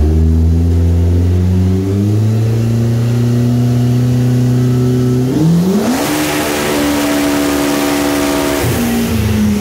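Turbocharged Polaris RZR Pro R four-cylinder engine making a full-throttle pull on a chassis dyno. The engine note climbs gradually, then jumps up about five and a half seconds in and holds high with a loud rushing sound. It falls away near the end as the throttle is let off.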